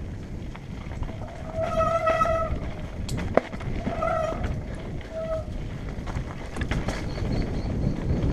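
Mountain bike rolling down a rough dirt trail: steady tyre and wind rumble with rattles and knocks from the bike. Three short high squeals about two, four and five seconds in, the first the longest, typical of disc brakes being applied.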